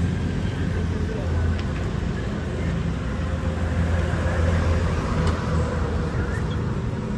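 Honda CG125 single-cylinder four-stroke engine idling steadily.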